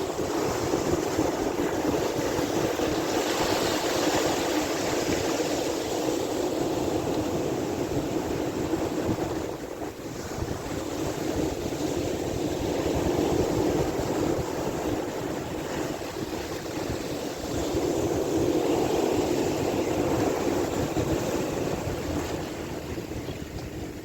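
Sea waves washing, a continuous rushing noise that swells and eases every few seconds.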